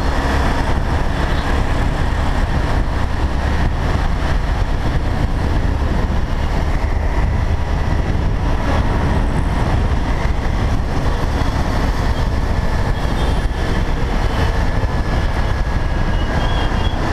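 Motorcycle riding through road traffic, heard from a camera mounted on the bike: a steady, loud rumble of engine and wind.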